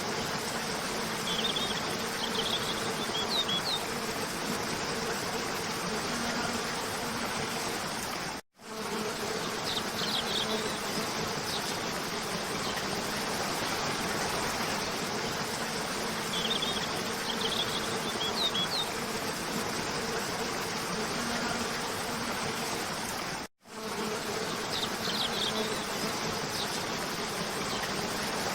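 Steady rush of a cascading waterfall, with a low steady hum beneath it and short bursts of bird chirps every several seconds. The sound cuts out completely for a split second twice, about 8 and 23 seconds in, where the recording loops.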